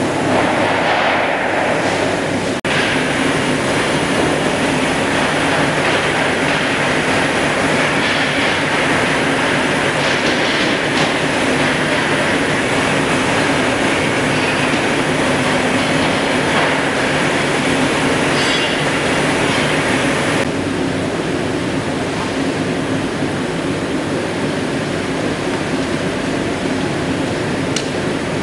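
A CNC plasma pipe-cutting machine running: a steady, loud rushing and rumbling machine noise. It drops out briefly about two and a half seconds in and turns duller from about twenty seconds in.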